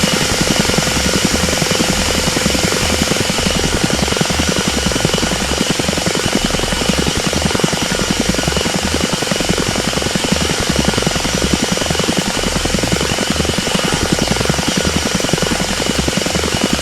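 Helicopter hovering sound effect: a rapid, steady rotor chop with a constant high whine over it, holding at an even level throughout.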